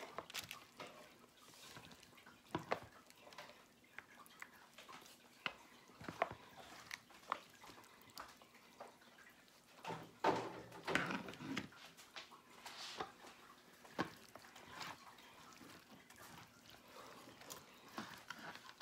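Faint, scattered clicks and knocks of utensils and plastic meal-prep bowls being handled while food is portioned out.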